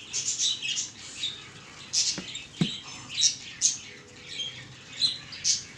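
Small birds chirping repeatedly in the background, short high calls coming every half second or so. Two light knocks come a little after two seconds in.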